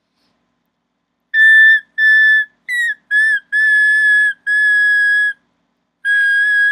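A whistle blown in seven blasts, traffic-directing signals. Most are held steady for half a second to a second, and one near the middle is a short rising chirp.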